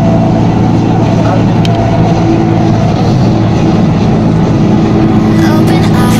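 Steady running noise of an elevated metro train, heard from inside the carriage: a continuous rumble with a low, even hum.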